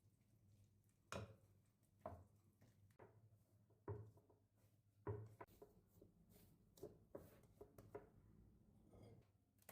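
Quiet, irregular light knocks and taps of objects being handled, with the sharpest ones about one, two, four and five seconds in.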